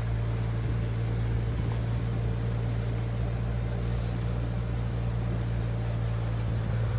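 Force Gurkha's diesel engine running steadily at low speed as the vehicle drives slowly through floodwater, a constant low hum heard from inside the cabin.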